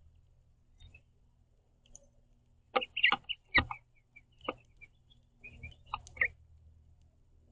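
House finches giving short, high chirps in two brief flurries, about three seconds in and again near six seconds, mixed with several sharp taps and clicks.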